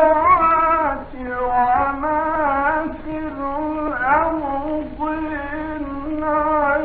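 A man chanting Quran recitation solo in the Egyptian style, with long held notes bending and ornamented in pitch and short breaths between phrases. It is an old recording with a thin, narrow sound.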